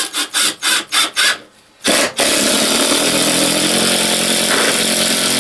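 Cordless drill driving screws into wooden floor-platform boards: about five short trigger bursts, then a steady run from about two seconds in as a screw is driven home.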